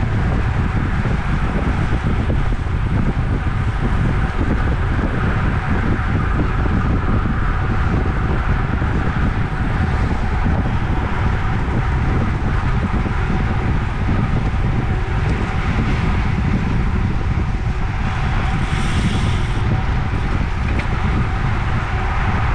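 Steady wind rushing over the microphone of a camera on a road bike riding in a racing pack at about 22 mph, with a faint steady hum under it. A brief higher-pitched buzz comes near the end.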